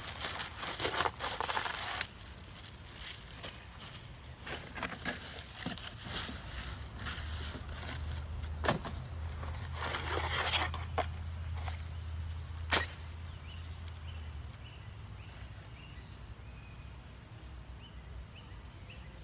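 Rustling and scraping of packaging as a pair of trekking poles is pulled out of a tall cardboard box and its plastic wrap, in several short bursts, with two sharp clicks partway through.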